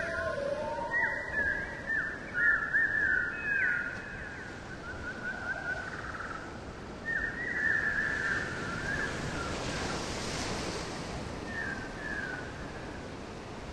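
Quick high whistled chirps in bursts, thick in the first few seconds, again around seven to nine seconds in and briefly near the end, over a steady wash of surf.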